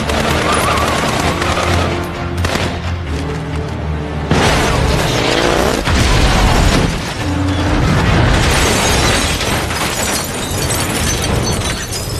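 Action-film soundtrack: dramatic music under gunfire, then a sudden loud crash and explosion about four seconds in as a car is wrecked and goes up in flames, with more loud blasts and rumble that carry on over the music.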